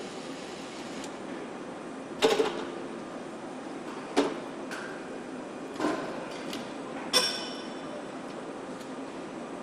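Car assembly line: a steady hall hum with four sharp metallic clanks, about two, four, six and seven seconds in. The first is the loudest, and the last rings briefly.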